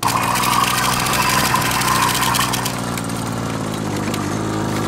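An engine running steadily, starting and cutting off suddenly.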